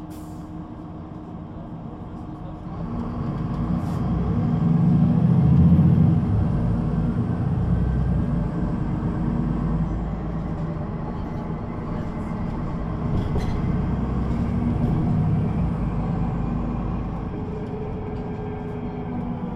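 Upright DAF diesel engine of a Solaris Urbino 18 III articulated bus, with its Voith automatic gearbox, running under load as the bus pulls away. The engine note rises from about three seconds in and is loudest around six seconds. It then eases off and swells again near fifteen seconds.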